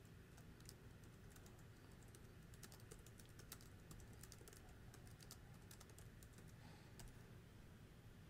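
Faint computer keyboard typing: a run of irregular, quick key clicks as a sentence is typed, stopping shortly before the end.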